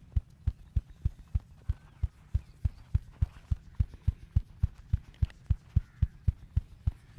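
Percussive massage strokes beating on a person's body: a steady rhythm of dull thuds, about three a second.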